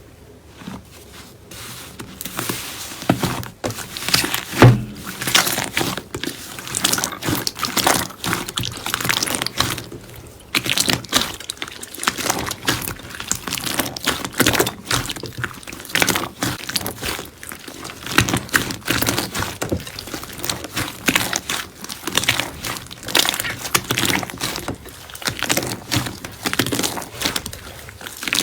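Slime being squeezed, poked and pressed by hand, giving a dense run of irregular sticky crackles and pops, with one louder thud about five seconds in.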